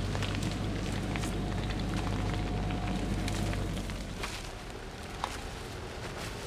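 An off-road vehicle's engine running at idle, a steady low hum that fades about four seconds in, with dry leaf litter and twigs crackling underfoot as someone walks on the forest track.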